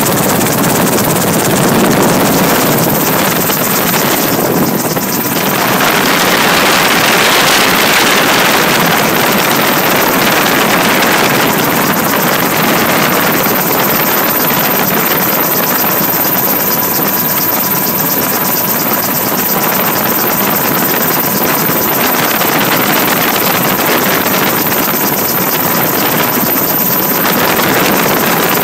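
Loud, steady cabin noise of a light aircraft in flight, heard from inside, with a thin steady whine running through it.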